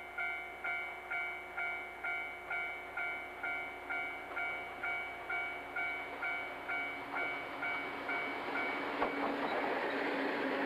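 Level crossing warning bell ringing about twice a second, each strike fading quickly. From about eight seconds in, the noise of a freight train hauled by an EF64 electric locomotive passing close rises and covers the bell.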